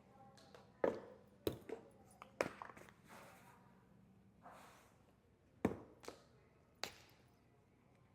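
Kitchen clatter: about six sharp knocks and taps of containers and utensils against a countertop or bowl while a seasoning mix is prepared, with a little soft rustling between them.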